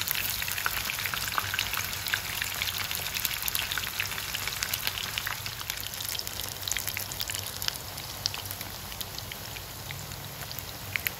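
Oil sizzling and crackling around lotus root patties shallow-frying in a pan, a dense patter of small pops over a steady hiss that eases slightly toward the end.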